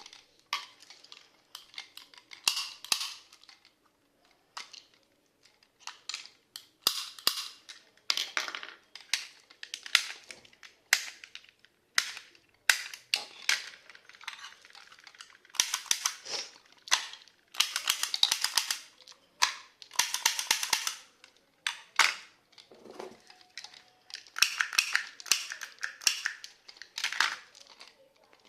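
Vintage Soviet metal toy pistols and revolvers clicking and clattering as they are handled, in irregular bursts of sharp metallic clicks with short pauses between.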